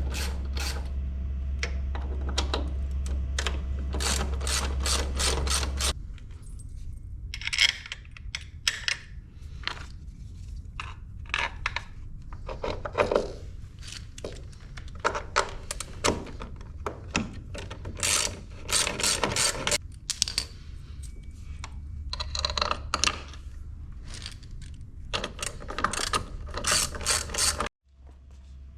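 Ratchet wrench clicking in quick runs of strokes as bolts are undone and done up, over a steady low hum that stops about six seconds in and returns near the end.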